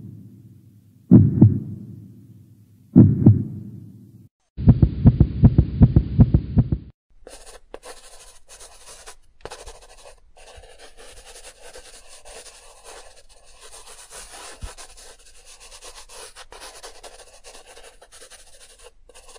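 A run of stock sound effects. Three deep booming hits come about a second and a half apart, each dying away. They are followed by about two seconds of rapid low pulsing. After that comes a long, fainter crackling hiss with scattered clicks.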